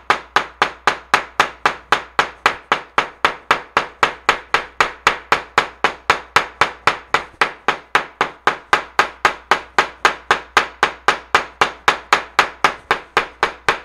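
Steel claw hammer pounding flower heads through a paper towel onto paper on a tabletop, a steady run of about four blows a second. The blows are pounding the plant's pigment into the paper to make a botanical print.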